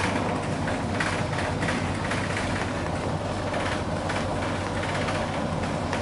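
Volvo B9TL double-decker bus's six-cylinder diesel engine running while the bus is under way, heard from inside the passenger saloon, with road noise and several short bursts of noise over the steady drone.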